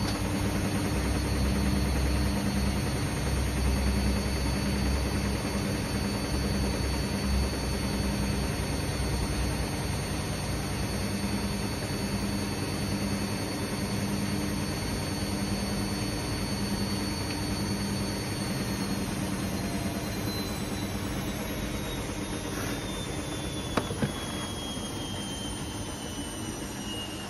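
Beko WMB71231B washing machine on its third intermediate spin: the motor and drum run at speed with a steady high whine over a pulsing low rumble. About two-thirds of the way through, the whine starts falling in pitch as the spin slows down, and a single short click comes near the end.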